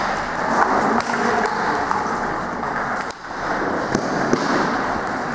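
Sharp knocks of a table tennis ball striking bats and the table, bunched in the first second of the rally, with a couple more knocks about four seconds in, over the steady background noise of a sports hall.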